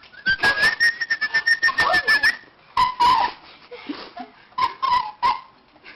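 A person whistling to call a dog: one long steady whistle held for about two seconds with quick clicking sounds over it, then two short lower whistles, one mid-way and one near the end.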